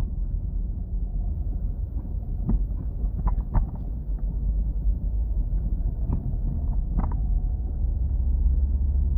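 Car on the move: a steady low rumble of engine and road noise, with a few light knocks or rattles a couple of seconds in and again near the end.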